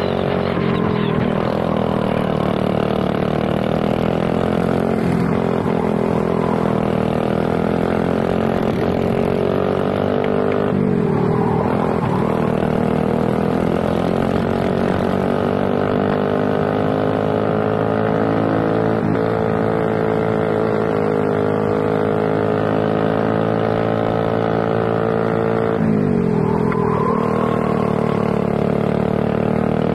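ZR28R prototype kart engine at full throttle, heard from on board. Its pitch climbs steadily along the straights, drops sharply twice as the throttle comes off for corners, then climbs again.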